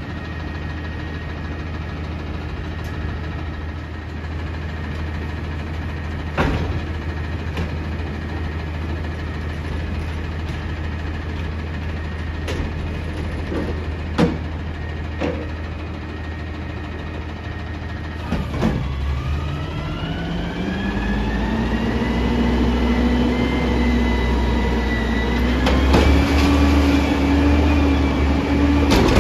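Peterbilt 320 front-loader garbage truck's diesel idling with a low steady drone, with a few sharp knocks as the dumpster is rolled into place. About eighteen seconds in, the engine revs up, its pitch rising and then held high, to drive the hydraulics as the front forks lift the dumpster over the cab.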